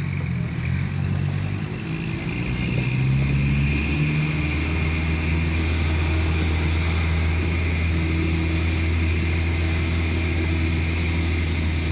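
Mercedes-Benz OF-1418 bus's diesel engine and exhaust running, with a faint steady high whine above the engine note. About two to four seconds in, the engine note rises and grows louder, then holds steady at higher revs.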